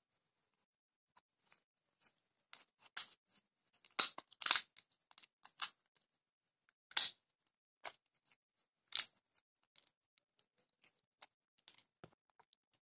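Brittle shell of dry tamarind pods cracking and snapping as it is peeled by hand: scattered sharp crackles, the loudest about four, seven and nine seconds in.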